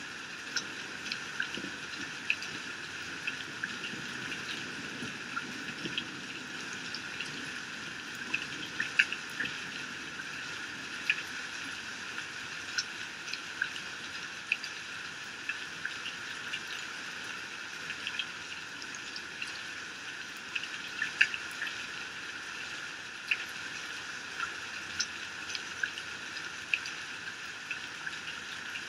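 Heavy rain falling steadily and running off a roof edge: a constant hiss with sharp single drops and splashes sounding at irregular moments throughout.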